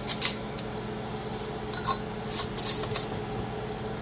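Glass mason jars with metal screw-band lids being handled on a countertop: short clicks and scrapes about a quarter second in, then a cluster of them around two and a half seconds in, over a steady background hum.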